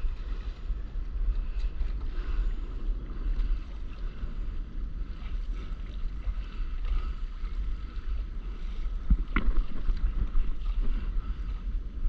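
Wind rumbling on the microphone over water sloshing and lapping against a stand-up paddleboard at sea, with one sharp hit about nine seconds in.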